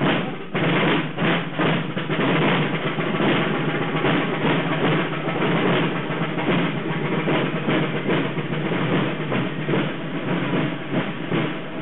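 Marching band playing as it parades, with snare and bass drums beating and rolling under the music.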